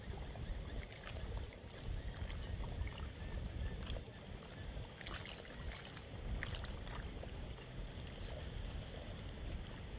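Wind buffeting the microphone in uneven gusts over choppy water lapping and slapping at the shoreline, with a few light splashes midway.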